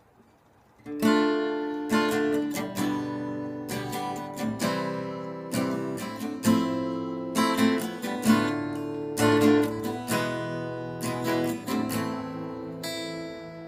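Acoustic guitar playing a strummed chord introduction, starting about a second in, with a new chord roughly every second.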